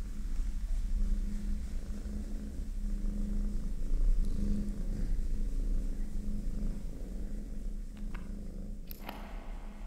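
A low, steady rumble with a faint hum in it, swelling a little and fading, and a few short clicks near the end.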